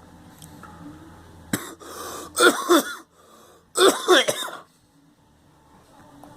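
A person coughing in two loud bouts, about two and a half and four seconds in, each of a couple of coughs. It is the cough of someone sick with a cold.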